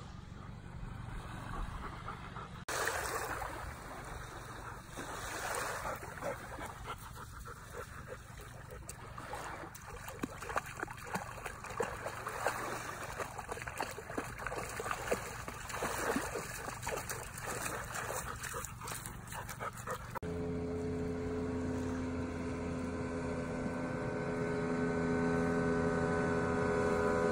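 Shallow sea water splashing and lapping around a wading Airedale terrier. About two-thirds of the way through it changes to a center-console motorboat's outboard engine running, a steady hum with several pitched tones that grows louder.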